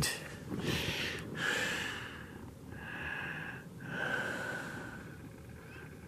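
A man breathing noisily close to the microphone: three long, breathy breaths about a second apart, fading near the end.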